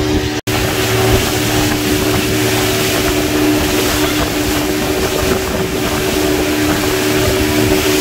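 Motorboat engine running steadily at speed over rushing water from the wake and hull spray, with wind buffeting the microphone. The sound drops out for an instant about half a second in.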